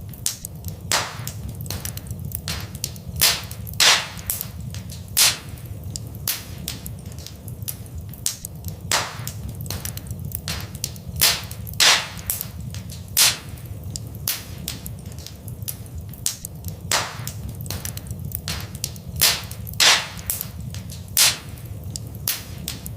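Wood fire in a fireplace crackling: frequent sharp, irregular pops and snaps, about a dozen of them louder, over a steady low rumble.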